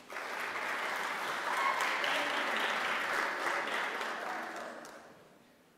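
Audience applauding: a short round of clapping that starts at once, holds steady, and dies away about five seconds in.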